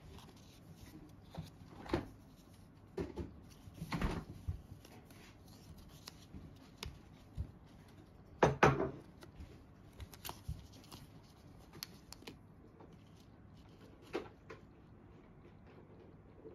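A small paper omikuji envelope being opened by hand and its contents taken out, with scattered paper rustles and crinkles. The loudest comes about eight and a half seconds in.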